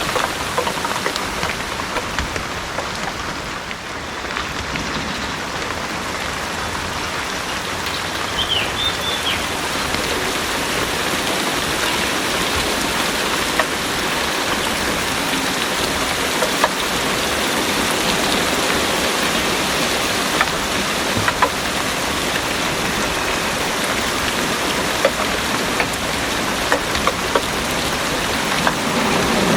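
Heavy rain pouring steadily, with individual drops ticking sharply on nearby surfaces.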